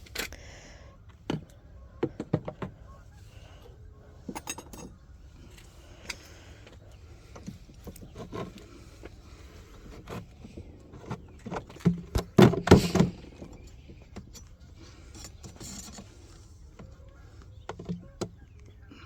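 Wooden beehive frames and equipment being handled: scattered clicks and knocks, with a burst of louder knocking about twelve seconds in.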